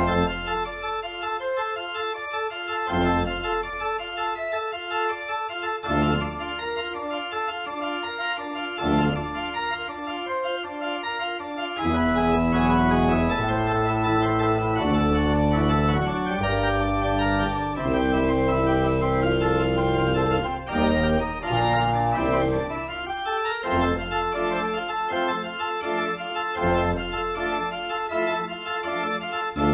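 Organ playing a slow piece in sustained, held chords. Heavier low bass notes come in about twelve seconds in and drop back again about ten seconds later.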